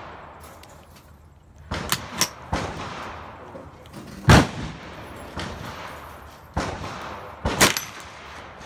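Gunshots at an outdoor shooting range: a string of sharp reports at uneven intervals, a cluster of quick shots about two seconds in, the loudest single shot a little past four seconds, and two more close together near the end, some fainter than others.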